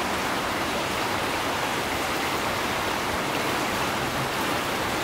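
Jordan River water running steadily past the bank, an even rushing sound.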